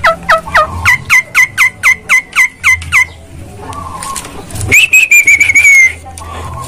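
Javan myna (jalak kebo) calling: a fast run of short notes, each dropping sharply in pitch, about four a second for three seconds; then, after a short pause, a held, slightly wavering high whistle lasting about a second. The uploader presents these calls as those of a bird eager to mate.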